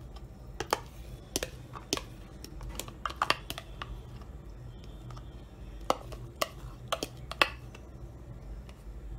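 Thin plastic tub of curd crackling and clicking as it is squeezed and flexed to empty it into the bowl, with a spoon scraping and tapping inside it near the end. The clicks are sharp and irregular, about a dozen in all.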